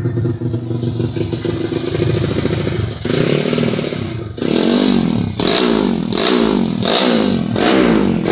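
Single-cylinder four-stroke engine of a Honda Supra 125 motorcycle bored up to 200 cc, running steadily at first, then revved in a quick series of short throttle blips from about four seconds in, five rises and falls.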